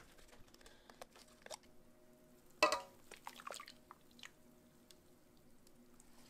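Thick chile sauce poured from a glass jar into a large aluminium pot over meat, dripping and squishing softly, with one louder sudden knock about two and a half seconds in.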